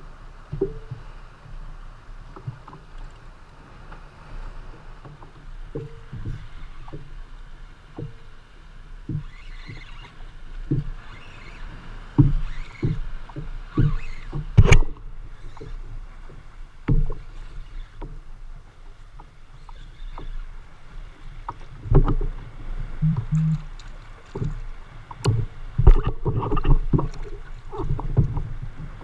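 Irregular knocks and clunks on a plastic fishing kayak as rod and gear are handled, over water lapping at the hull. The knocks come closer together near the end.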